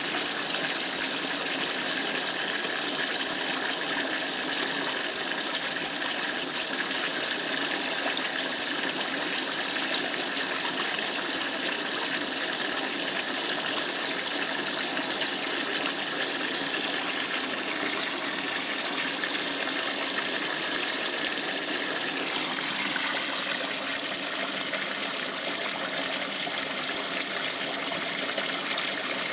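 Electrolux Top 8 top-loading washing machine during its rinse: water gushes steadily into the tub as it fills. A little over 20 seconds in, the pitch of the rush shifts slightly.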